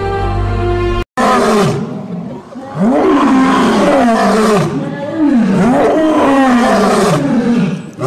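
Male lion roaring: a series of deep roars, each rising and then falling in pitch. Before it, soft music cuts off about a second in.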